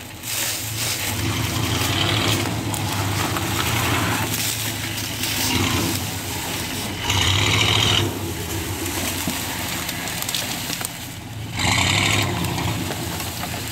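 Chevrolet Silverado pickup's engine running under load while off-roading, with two louder surges about seven and twelve seconds in.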